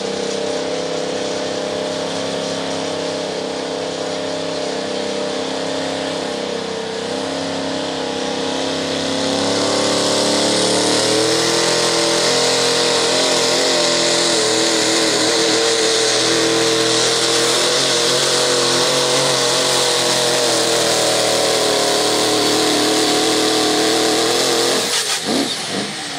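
Turbocharged diesel pulling truck engine running, then going to full power about ten seconds in as it drags the weight-transfer sled, with a high turbo hiss over the engine. The engine cuts back sharply near the end as the pull ends.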